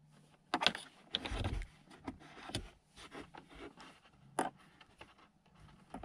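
Plastic clicks and scraping as a 12-volt USB charger adapter is pushed into a car's accessory power socket and worked into place, with a sharp click about half a second in and another a little past four seconds.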